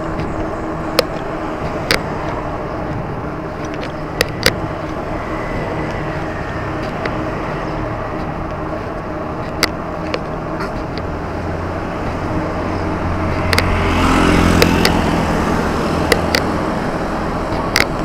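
Steady road traffic noise with scattered sharp clicks and knocks. A motor vehicle engine swells up and passes about fourteen seconds in, the loudest part.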